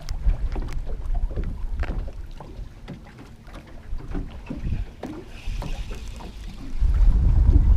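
Wind buffeting the microphone on a small boat, with light clicks and knocks from handling a spinning rod and reel. A much stronger gust comes in about seven seconds in and is the loudest part.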